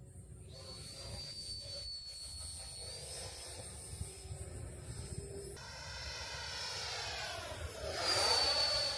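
Freewing F-22 radio-controlled jet's 90mm electric ducted fan whining in flight. The sound grows louder and peaks in a swooping rush as the jet makes a close pass about eight seconds in.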